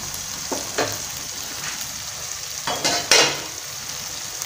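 Black-eyed peas frying in oil and masala in a pot, sizzling steadily, while a wooden spatula stirs and scrapes through them. There are a couple of short scrapes in the first second and louder scrapes around three seconds in.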